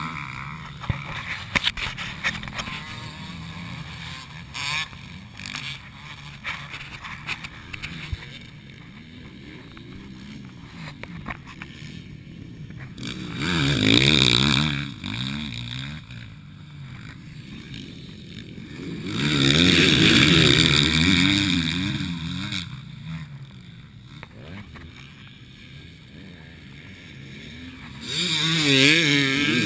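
Motocross bikes racing past on a dirt track, their engines revving up and down with each gear change and throttle blip. Three riders pass close by, a little before halfway, a few seconds later, and again near the end, with quieter engines in the distance between.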